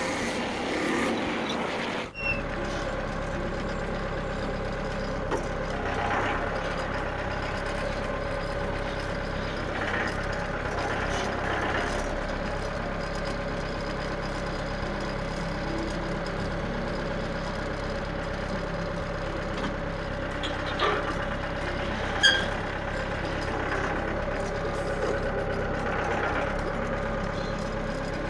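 Small engine of a portable bandsaw sawmill running steadily, with a constant whine above it and a few short sharp clicks near the end. The sound changes abruptly about two seconds in.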